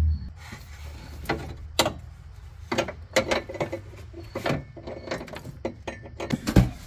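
Scattered, irregular metallic clicks and knocks of hand tools and metal bracket hardware as light bar mounting brackets are lined up and bolted on.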